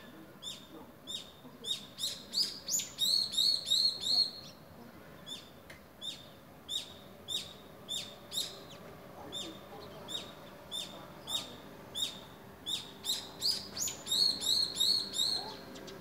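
A bird calling a short, high chirp over and over, about one every half second to second. Twice the chirps quicken into runs of about four a second, once a few seconds in and again near the end.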